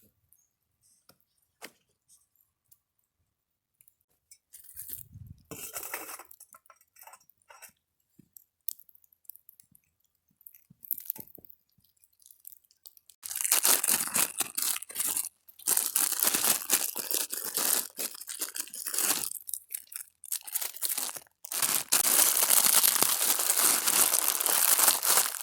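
Plastic food packaging being crinkled and torn open. It starts with a few scattered crackles and becomes loud, continuous crinkling from about halfway through.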